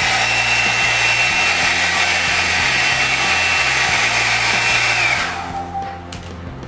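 Arçelik K 5164 SF hot-air brush (a blow-dryer with a brush head) running with a steady high whine over its rushing air. It is switched off about five seconds in, and the whine drops as the motor winds down.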